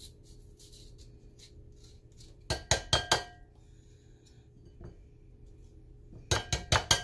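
Metal rasp grater knocked against a glass mixing bowl to shake grated garlic off. It makes sharp, ringing clinks: a few together past the middle, then a quick run of about five a second near the end, after faint scraping at the start.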